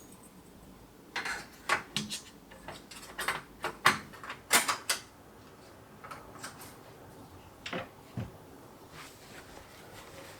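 Kitchen items being handled and put away: a quick series of sharp clicks and knocks, like cupboard doors, drawers and dishes. They come thickest in the first half, with a few more a little later.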